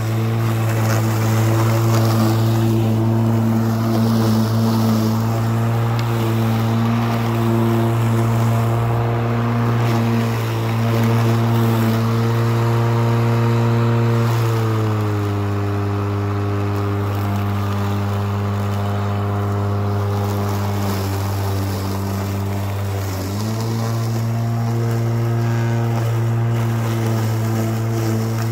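Stihl 235 battery lawn mower's electric motor and spinning blade running with a steady hum. Its pitch drops about halfway through, stays lower for several seconds, then rises back up near the end.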